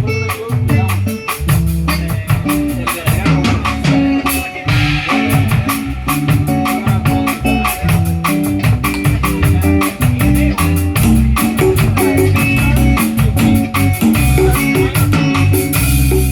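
Live band playing music with a drum kit and a bass line that steps from note to note under a steady beat.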